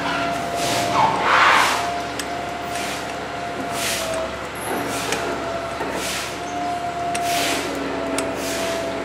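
A steady mechanical hum holding two even tones, with a short swish about once a second and a louder rustle about a second in.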